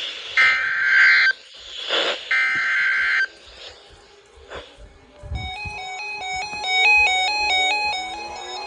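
NOAA Weather Radio SAME data header: screeching digital tone bursts about a second long, repeated with short gaps, the coded preamble that precedes a new warning. About five seconds in, a melody of stepping electronic beeps starts, with rising tones beneath it near the end.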